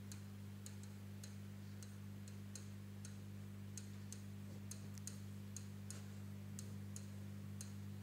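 Stylus tapping on a touchscreen board while handwriting: a string of faint, irregular clicks, a few a second. A steady low electrical hum runs beneath.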